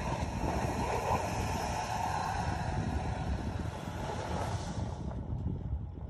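Audi Q7 e-tron SUV driving through deep snow with its wheels spinning and churning up snow, a steady rushing noise. The hiss drops away about five seconds in as the car heads away.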